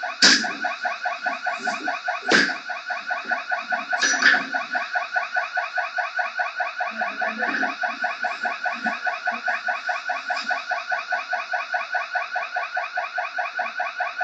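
Shop alarm ringing throughout with a fast, even pulsing tone, while loud blows strike the glass display counter three times in the first four seconds or so; after that the alarm continues alone.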